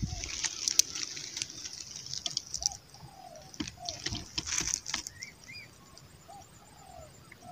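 Rustling and clicking handling noise over the first few seconds, then short chirping bird calls scattered through the rest, quieter.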